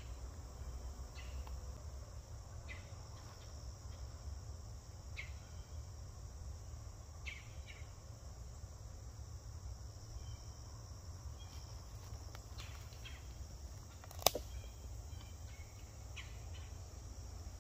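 Steady high, even buzzing of an insect chorus in summer woods over a low rumble, with scattered short chirps. A single sharp snap or click about fourteen seconds in is the loudest sound.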